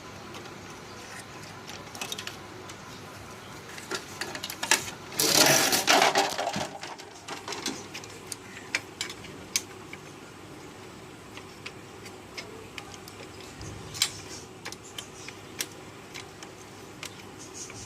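Plastic parts of a laser printer's gear assembly clicking and rattling as they are handled and pressed into place, with a louder clatter about five seconds in.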